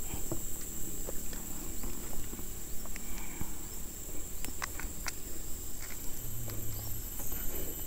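Steady high-pitched insect chorus with frogs calling, broken by scattered small clicks and taps.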